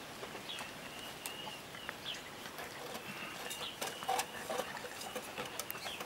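Caucasian shepherd puppies eating together from a metal bowl: chewing and lapping with scattered clicks and clinks against the bowl. Faint, high, thin chirps sound now and then.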